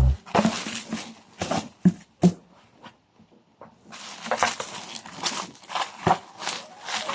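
Objects being handled and set down at close range: several sharp knocks and clinks, with rustling handling noise in the last few seconds.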